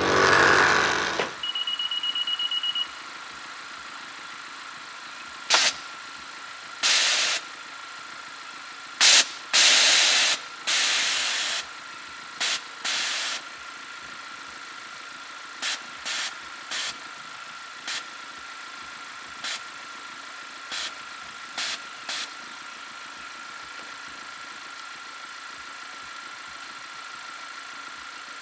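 Air suspension valves firing in short bursts of hissing air, a dozen or so, some under a second long, as the air bags are filled and dumped to set the ride height. Under them is a steady background hum with a faint steady whine, and a short high beep about two seconds in.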